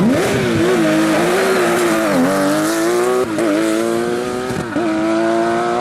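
Porsche rally car engine at high revs under hard acceleration, its pitch climbing steadily and dipping briefly three times as the revs drop and pick up again.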